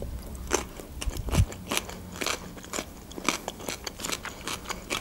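Close-miked chewing of a raw cucumber slice: irregular crisp crunches, about two a second.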